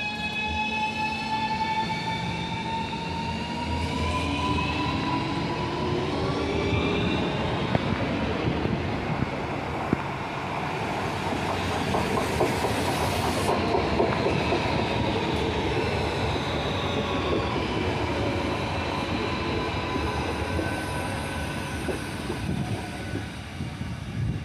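Renfe Cercanías Civia electric trains. One accelerates away with its traction motors whining upward in pitch over the first several seconds. The rumble and clatter of wheels on rail are loudest around the middle as a train passes, with a few sharp clicks.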